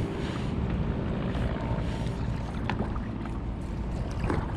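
Water splashing and lapping around a kayak as it moves along, with wind rumbling on the microphone.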